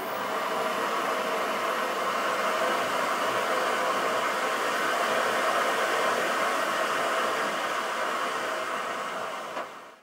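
Inventor Epic BG62 bagged vacuum cleaner running: a steady rush of suction air over a steady motor hum, cutting off near the end.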